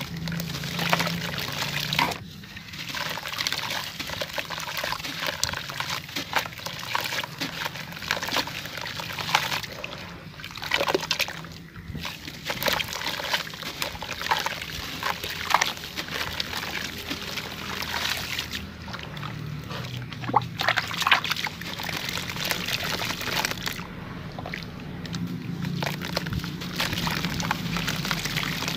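Soaked sand-cement chunks crumbling in the hands and dipped into a bucket of water: wet grit pours and patters back into the water amid sloshing, with many small crackles and splashes.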